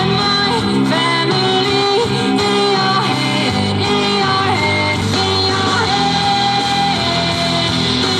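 A rock-pop song with singing and guitar, an FM broadcast playing through the Nordmende Caruso console tube radio.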